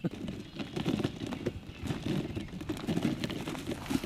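Footsteps of people walking, an irregular run of crunching steps and rustles.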